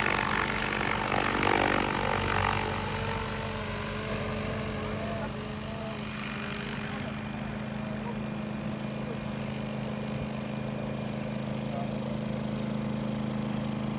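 Crop-spraying unmanned helicopter flying overhead: a steady mechanical drone of its engine and rotor with several fixed low tones, the higher hiss fading about seven seconds in.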